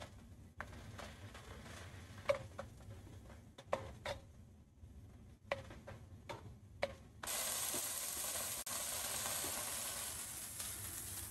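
Wooden spoon stirring lamb chunks and onions in an enamelled cast-iron pot, with a few short knocks of the spoon against the pot. About seven seconds in it gives way to a steady sizzle of the meat frying in the pot.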